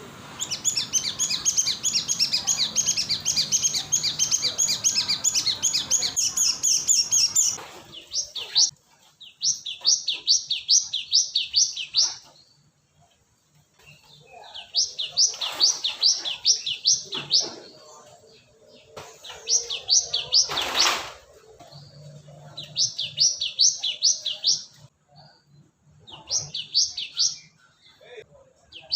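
Cinereous tit (gelatik batu) calling: rapid runs of high, evenly repeated notes in bursts of two to seven seconds with short pauses between them, as used for a luring call. A single sharp knock sounds about twenty seconds in.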